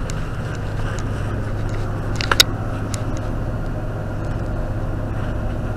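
Steady low hum of background noise picked up by a spy pen camera clipped to a hoodie, with a few faint clicks of handling and one sharp click about two and a half seconds in.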